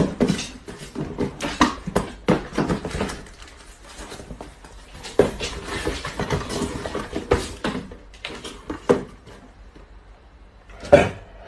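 Irregular scuffing and rustling of a small paper box as a cat wriggles and squeezes itself into it, with a sharp knock near the end.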